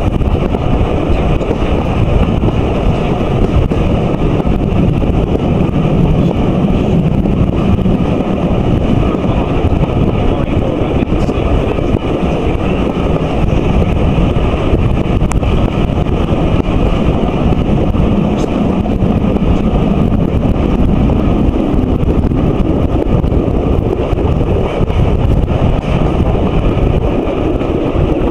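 Wind buffeting a microphone held out of a moving steam train's carriage window, over the steady running noise of the train on the track.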